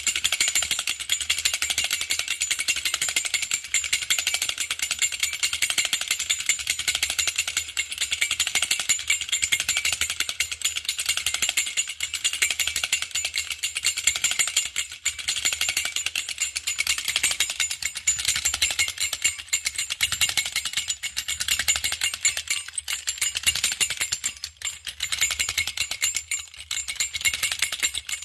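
Vintage Toyland wind-up cymbal-player toy running, its clockwork mechanism rattling as its two small metal cymbals clash together in a rapid, continuous clatter. There are a couple of brief breaks near the end.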